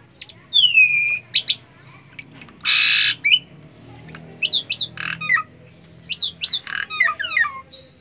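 Jalak suren (Asian pied starling) calling and chattering. A loud whistle slides down about half a second in, a harsh squawk comes near the middle, and a quick run of whistled notes and rasps fills the second half.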